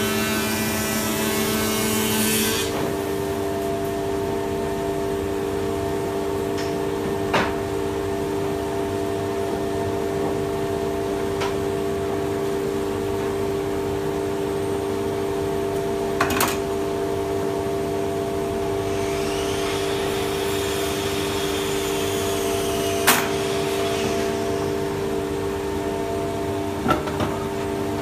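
Workshop machinery running with a steady, loud hum of several fixed pitches. A burst of broad noise cuts off about two and a half seconds in. Now and then a light knock of timber and tools sounds on the bench.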